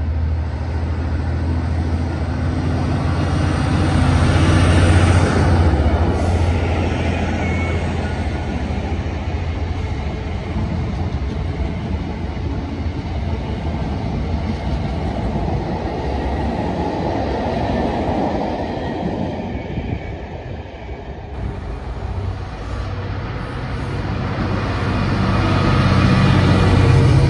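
A locomotive-hauled train passes close by. A low engine drone is strongest in the first few seconds, then the coaches and a South Western Railway class 442 unit rumble past on the rails. About 21 seconds in, a pair of GB Railfreight class 66 diesel locomotives approach, their engine drone building to the loudest point near the end as they haul empty flat wagons.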